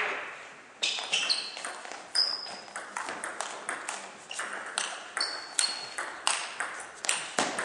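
Table tennis ball in a rally: sharp clicks of the celluloid ball off the bats and the table, two to three a second, starting with the serve about a second in. A few brief high squeaks of shoes on the hall floor are mixed in.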